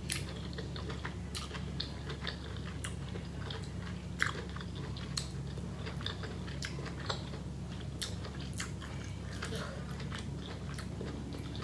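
A person eating seafood boil with her hands: chewing and wet mouth smacks with scattered sharp clicks, over a steady low hum.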